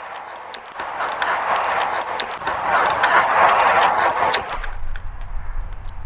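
High-pass-filtered outdoor recording played back partly slowed: a rushing noise swells for about three seconds and then fades, with scattered clicks. The uploader presents it as an EVP of a female voice saying "do bleib ich".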